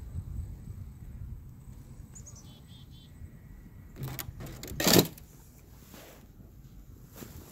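A loud brief rustling crunch about five seconds in, as someone moves right by the microphone. Before it there is a low rumble and a few faint, short high chirps.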